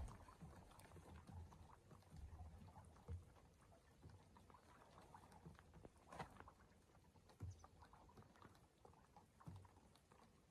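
Near silence, with a few faint, soft, scattered knocks.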